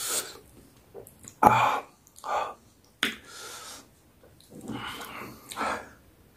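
A person eating spicy peri peri chicken, making a series of short, separate breaths, sniffs and mouth noises between bites. A louder one comes about a second and a half in.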